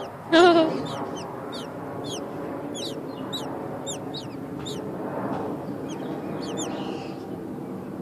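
Nestling songbirds' begging calls: thin, high peeps that slide downward, about two a second, as the chicks gape for food.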